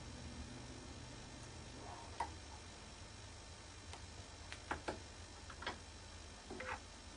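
Scattered light clicks and taps of fly-tying tools being handled at the vise, about six in all at irregular spacing, the loudest a quick cluster a little past halfway, over a low steady hum.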